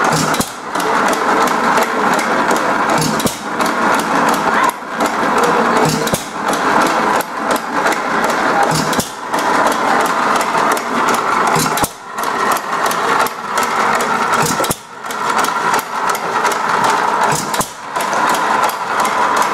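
1914 Economy model D hit-and-miss gas engine running and driving a belted machine through a flat belt: a dense mechanical clatter with short lulls every second or two.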